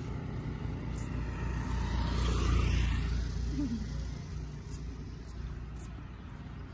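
A motor vehicle passing by on the road, its rumble swelling to a peak about two and a half seconds in and then fading away.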